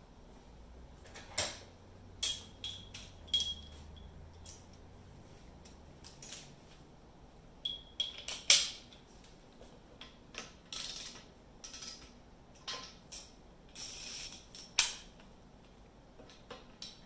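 Hand tools handled against metal: irregular clicks and clanks, a few with a short metallic ring. The loudest clank comes about eight and a half seconds in.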